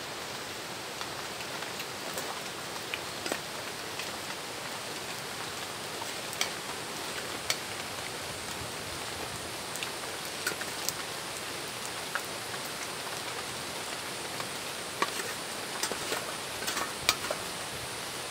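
Steady rain, with scattered sharp clicks of a spoon against a metal bowl.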